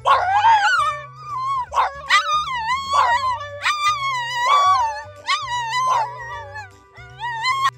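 Two French bulldogs howling together, a string of long, wavering, overlapping howls, over background music with a low bass line.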